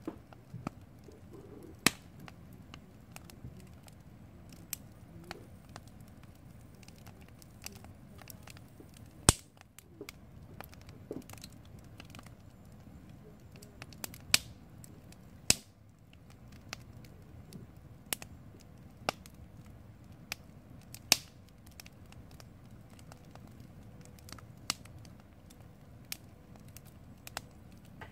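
Wood campfire of split logs crackling, with irregular sharp pops over a low steady hiss. The loudest pop comes about nine seconds in.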